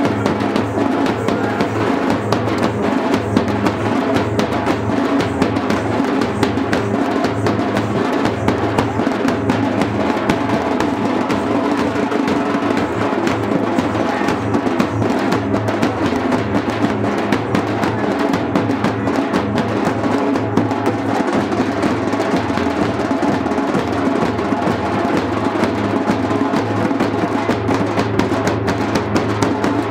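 Loud, continuous drumming, a dense run of rapid strokes without a break.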